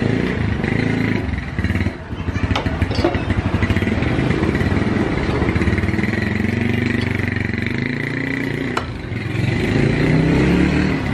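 Yamaha RX King's 135cc two-stroke single-cylinder engine running, its note rising and falling, with a brief dip about two seconds in and a sharp click near the end.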